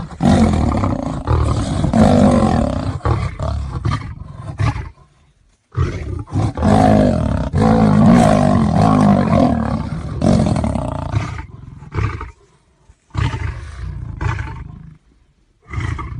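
A lion and a tiger roaring at each other in a fight, in long loud bouts broken by short pauses about five, twelve and fifteen seconds in.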